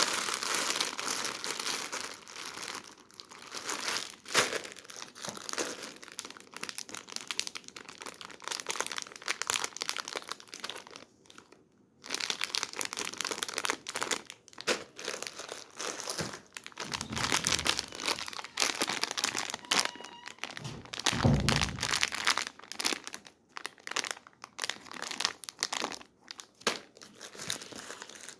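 Candy and chocolate wrappers crinkling and rustling as they are handled, with many small crackles and clicks, a short pause near the middle, and a couple of dull thuds later on.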